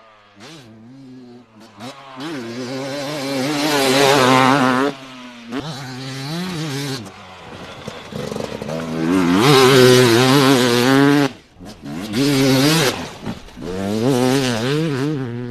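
Dirt bike engine revving hard as it is ridden over rough ground, its pitch rising and falling quickly under the throttle. It drops away briefly a few times before picking up again.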